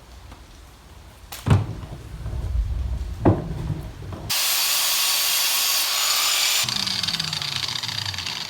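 Two sharp metal knocks, then an angle grinder starts about four seconds in and runs for about two seconds with a loud high hiss. It is then switched off and its pitch falls as the disc spins down.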